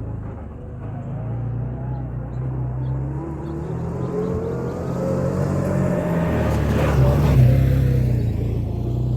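Can-Am Commander 1000 side-by-side's V-twin engine running under way on a test ride, pulling up through its revs with a pitch that rises over several seconds and grows loudest a little past the middle.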